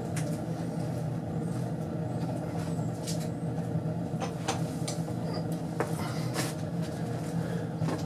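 Home-made wood pellet rocket stove burning hard with a steady low rumble, with sharp crackles here and there.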